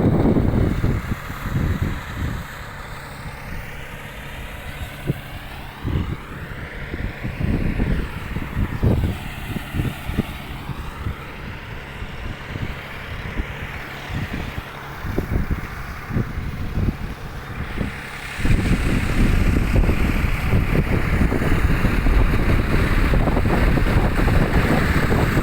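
Engine of a ploughing machine running steadily, with wind gusting against the microphone. From about three-quarters of the way through, the low wind rumble becomes louder and continuous.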